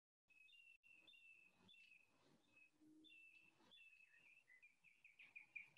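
Faint birdsong over near silence: short chirping notes repeated again and again, quickening into a rapid run of notes near the end.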